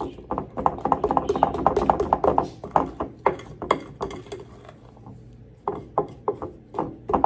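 A spoon tapping and scraping as brownie batter is spooned into a greased baking pan: a quick run of clicks and knocks, a short lull, then more taps near the end.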